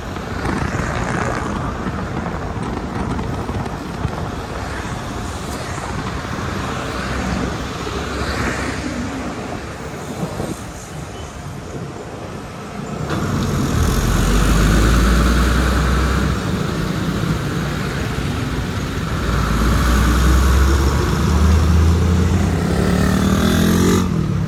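Road traffic heard from a moving motorcycle: steady wind and road noise, then from about halfway in a heavier low engine rumble among the trucks and jeepneys. Near the end an engine's pitch rises as it revs up.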